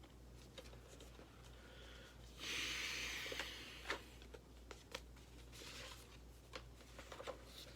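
Faint handling of a DVD case and its insert: a hiss lasting about a second, starting some two and a half seconds in, then a few soft clicks.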